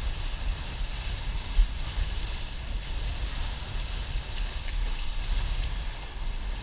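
Wind buffeting the microphone in a low rumble over a steady hiss of water rushing past a windsurf board, with one louder bump about a second and a half in.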